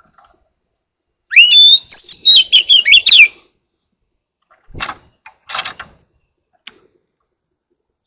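Oriental magpie-robin singing a loud, two-second phrase of whistled notes that rise and fall quickly, beginning a little over a second in. About a second and a half later come two short, harsh, rasping sounds.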